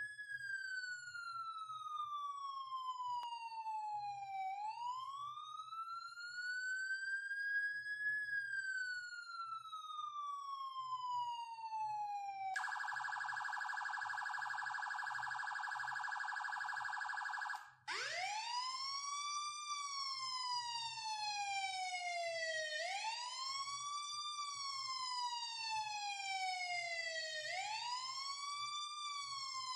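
Siren running through three patterns: a slow wail that falls and rises in pitch over several seconds, then about five seconds of a fast warble, then after a brief break a wail that sweeps up quickly and falls slowly, repeating about every four and a half seconds.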